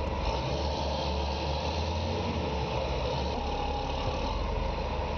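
Heavy diesel engine of a tire handler running steadily, a deep continuous rumble under a broad mechanical hiss.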